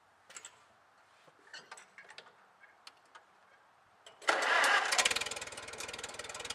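A few light clicks and knocks, then about four seconds in a homemade sawmill's small engine starts up suddenly and settles into a fast, even running beat.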